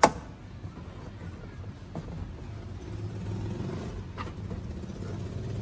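A sharp plastic clack as the car's dashboard top panel is lifted free, then a low steady rumble with a couple of faint taps as the panel is handled.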